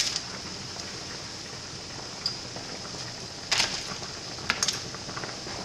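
Bagels boiling in a stainless steel pot of water at a rolling boil, a steady bubbling hiss. Sharp clicks and knocks from a slotted spoon being picked up and handled at the pot come at the start and again about three and a half and four and a half seconds in.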